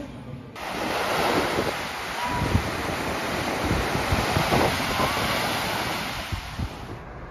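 Small waves breaking and washing up on a sandy beach, with wind buffeting the microphone. The surf starts abruptly about half a second in and fades out near the end.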